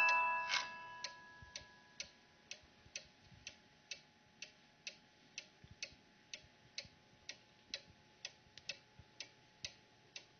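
Black Forest cuckoo clock with a one-day mechanical movement, ticking steadily at about two ticks a second. The last notes of its 22-note music box ring out and fade in the first second.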